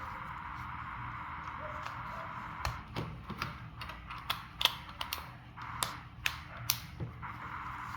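A string of sharp, short clicks and taps from handling a mobile phone and its packaging, about a dozen of them, irregular, between about three and seven seconds in, over a steady background hiss.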